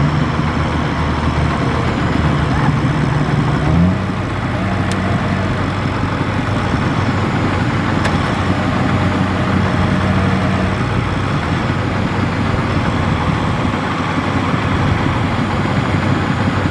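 Diesel engines of a combine harvester and a tractor running together, working in deep mud. Their pitch jumps up briefly about four seconds in, then settles back to a steady run.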